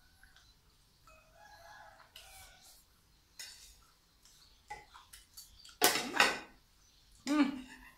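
A rooster crowing, with spoons clinking against plates.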